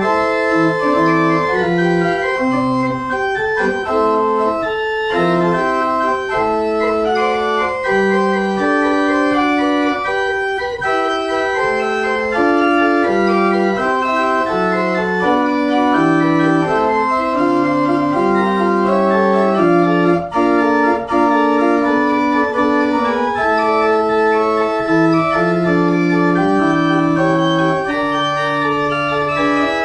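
Pipe organ being played: several lines of held notes moving against each other, with a lower part stepping underneath, at a steady, full level.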